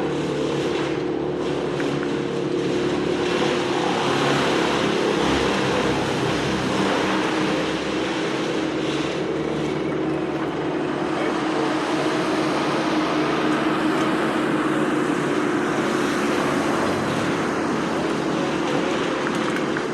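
An engine running steadily at an even speed, a constant drone that holds the same pitch throughout.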